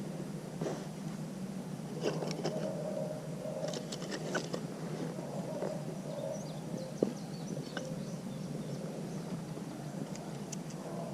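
Scattered clicks, snaps and scrapes of kindling and sticks being handled while a campfire is laid and lit, busiest from about two to four and a half seconds in, with one sharper snap about seven seconds in, over a steady low hum.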